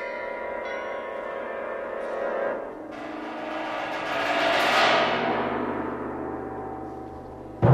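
Avant-garde chamber orchestra music. A held chord of sustained tones gives way, about three seconds in, to a bright shimmering swell that rises and then slowly fades.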